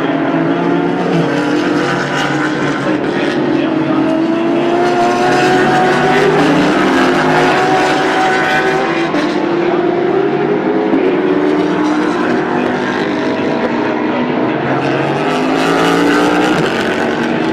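Several sports race car engines running on a road course at once, their overlapping notes rising and falling as the cars accelerate and lift through the turns.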